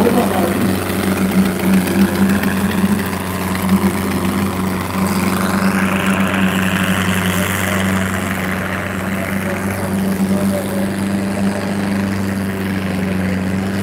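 Diesel engines of two tractors, a Farmtrac 6055 and a red modified tractor, running hard under full load as they pull against each other in a tug-of-war, with a steady low drone throughout.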